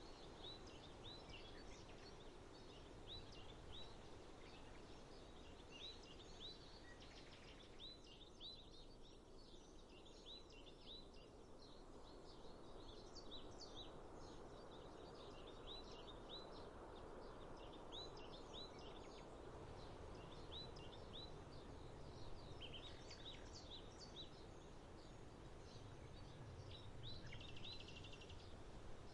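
Small birds chirping faintly, with short repeated chirps in quick runs throughout, over a steady low background rumble.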